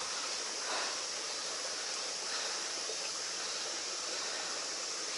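Steady rushing hiss of a stream flowing among rocks, with no distinct sounds standing out.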